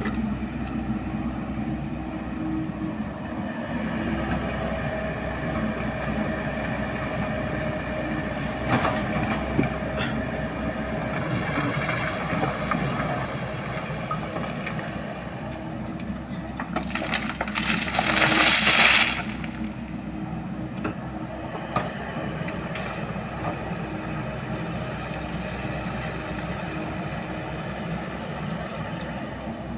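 Diesel engine of earthmoving machinery running steadily, with stone crunching and scraping as crushed rock is pushed and spread. A louder rushing burst lasts about two seconds a little past the middle.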